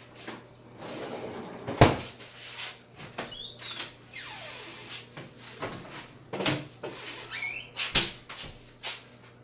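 Kitchen cupboard doors being opened and shut, giving a series of sharp knocks and bangs, the loudest about two seconds in and near the end. Rustling and a couple of short high squeaks come in between.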